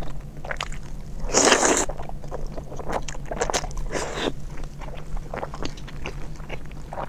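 Mouth sounds of chewing braised beef tendon: a run of small clicks and smacks, with a louder bite about one and a half seconds in and another near four seconds.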